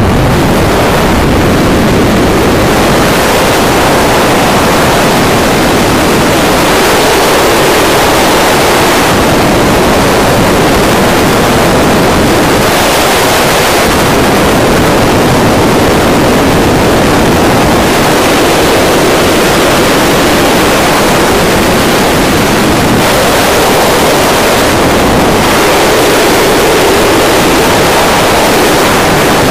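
Loud, steady rush of wind on the microphone of a wingsuit pilot's camera in full gliding flight at about 165 km/h.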